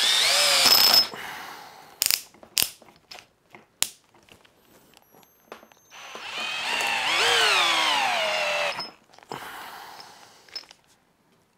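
A cordless drill driver whirring in two runs on a large lag screw in a wooden beam. The second run rises in pitch and then sags as the motor comes under load, and a few sharp clicks fall between the runs.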